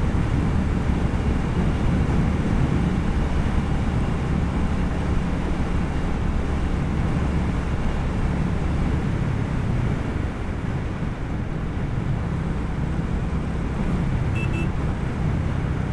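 Royal Enfield Hunter 350's single-cylinder engine running steadily at cruising speed, with wind rushing over the microphone. Two short high beeps come in quick succession near the end.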